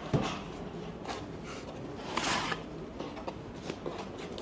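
Corrugated cardboard box being handled and opened: a light knock, then soft scrapes and rustles as its flaps are pulled open, the loudest about two seconds in.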